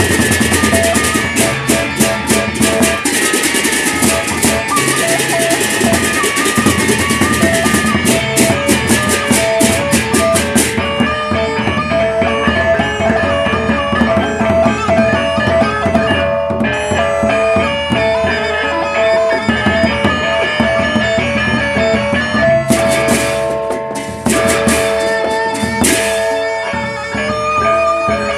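Lombok gendang beleq ensemble playing: large barrel drums beaten with sticks, with gongs and rapid clashing hand cymbals. The dense cymbal clashing drops out about ten seconds in, leaving drums and a repeated gong melody, and comes back briefly near the end.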